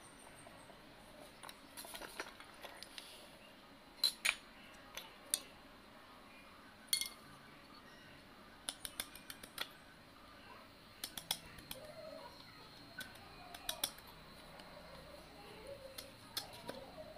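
A knife blade cutting and prising at a hand-carved teak chain, giving scattered light clicks and snaps, some single and some in quick clusters of two to four.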